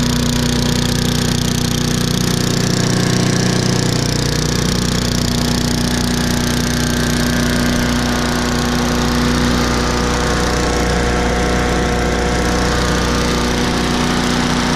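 Troy-Bilt chipper shredder's Briggs & Stratton 1150 Series 250 cc single-cylinder engine running steadily. Its partially clogged carburetor jet has been cleaned.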